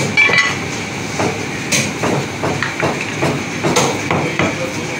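Meat cleaver chopping fresh lamb on a round wooden tree-trunk chopping block: a run of irregular knocks, about two a second.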